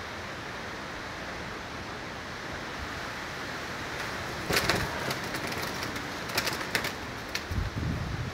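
Hurricane wind and rain as a steady rushing noise. Past the middle come bursts of sharp clicks and rattles, and near the end a few low dull bumps.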